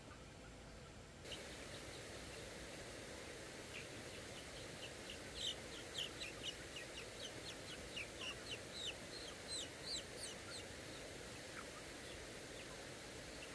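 Young chickens peeping: a flock of half-grown chicks gives many short, high cheeps, thickest through the middle stretch, over a steady background hiss.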